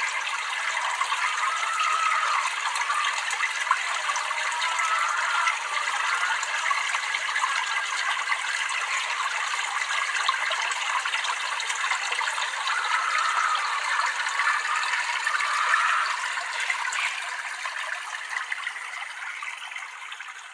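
Water trickling and gurgling steadily, fading out near the end.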